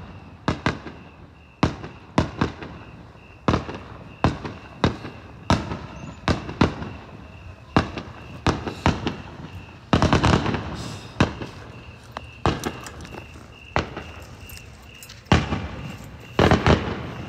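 Aerial fireworks shells bursting in a long series of sharp bangs, irregularly spaced, with a dense flurry of reports about ten seconds in and a few heavier bangs near the end.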